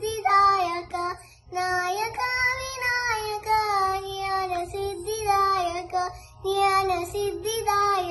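A young girl's voice singing a Carnatic-style devotional bhajan solo, in long, held notes that glide between pitches, with a brief pause a little after one second.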